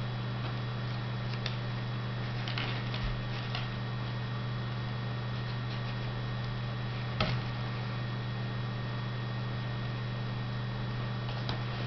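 Steady low electrical hum, with a few faint clicks and rustles of plastic drinking straws and fishing line being handled and tied by hand; the sharpest click comes about seven seconds in.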